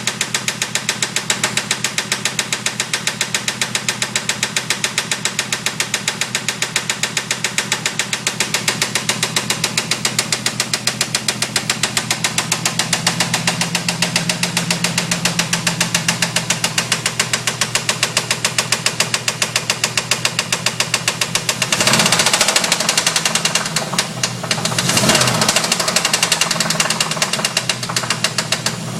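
350 V8 engine running with a rapid, even knock, briefly revved twice near the end. The owner suspects the knock is rod knock.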